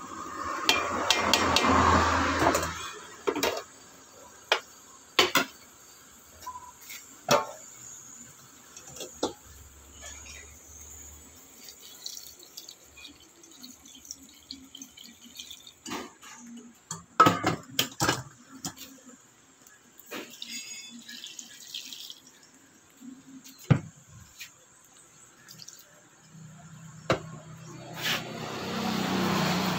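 Water poured from a kettle into an aluminium pot of cabbage leaves, mixed with short knocks and clinks of the kettle and pot.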